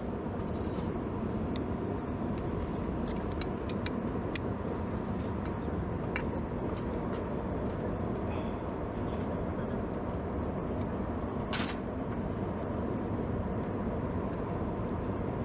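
A small blacksmith's forge running with a steady rumble, with a few light clicks and one sharper click about eleven and a half seconds in.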